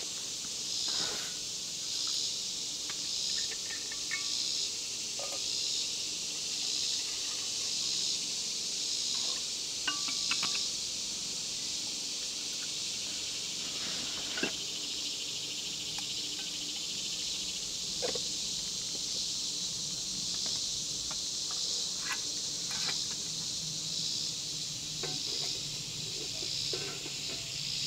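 Chorus of insects: a steady high buzzing drone that pulses regularly, about once a second. Scattered light clicks and clinks of camp gear and a metal pot being handled sound over it.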